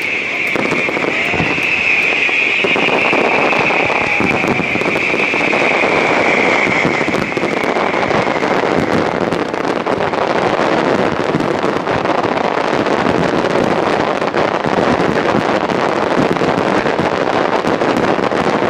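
Star mine fireworks barrage: a dense, continuous rumble of shell bursts and crackle. A high whistling tone is heard in the first few seconds and fades away by about the middle.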